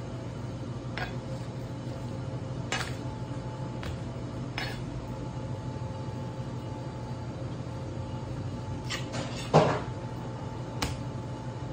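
Knife and raw swordfish handled on a cutting board while the loin is portioned: a few scattered sharp knocks and clicks of the blade against the board, with the loudest thump about nine and a half seconds in, over a steady low hum.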